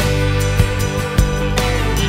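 Instrumental background music: sustained chords with a beat struck about every half second.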